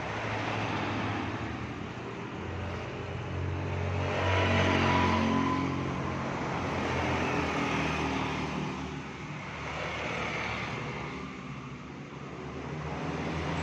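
An engine-like motor hum that swells and fades several times, loudest about four to five seconds in.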